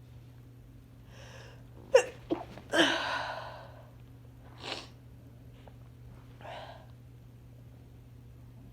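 A woman with a head cold sneezing: a breath drawn in, two sharp catches, then one loud full sneeze about three seconds in. A shorter, quieter sound and a soft breath follow.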